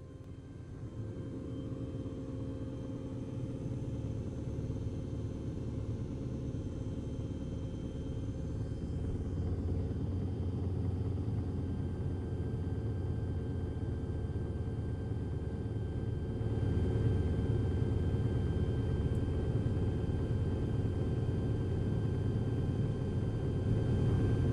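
Dark ambient drone soundtrack: a low, steady rumble with faint humming tones held above it. It fades in at the start and swells slowly louder, stepping up once about two-thirds of the way through.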